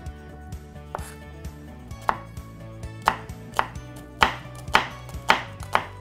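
Chef's knife dicing a red onion on a plastic cutting board: sharp knife strikes on the board about two a second, getting louder from about two seconds in.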